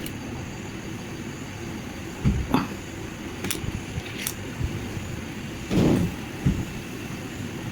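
A few sharp knocks and clicks at uneven intervals over a steady low rumble.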